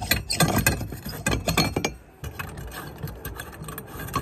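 Glass flood bulb being unscrewed by hand from an old outdoor light fixture's metal socket: a run of scraping clicks and clinks, busiest in the first two seconds, then fewer and quieter.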